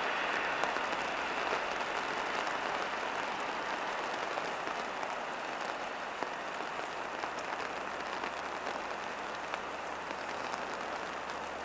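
Steady rain falling, with scattered drops ticking close by; the hiss eases slightly toward the end.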